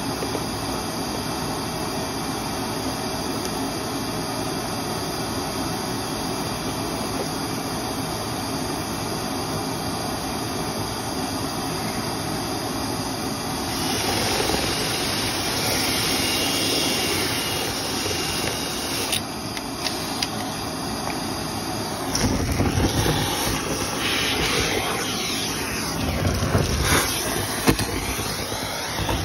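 Dryer vent cleaning machine running with a steady rushing noise. It grows louder and brighter about fourteen seconds in, then turns rougher with scattered knocks and rattles in the last seven seconds.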